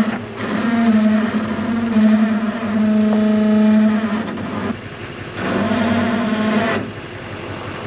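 Chevrolet Kodiak C4500 truck's engine running under light throttle in steady pushes as the truck is backed slowly under the camper, easing off briefly about two thirds of the way through and again near the end.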